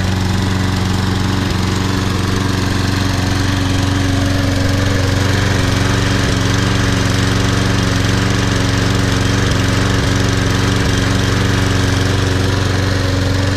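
Toro Super Recycler walk-behind lawn mower's engine running steadily, warming up just after a first-pull cold start.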